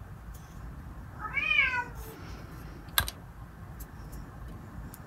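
A cat meows once, a single rising-then-falling call, yelling for attention. About a second later there is one sharp click, with a few faint ticks around it.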